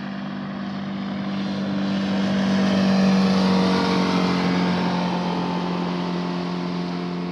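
Outboard motor of a passing boat: a steady engine note grows louder to a peak about three seconds in, then fades as its pitch drops slightly.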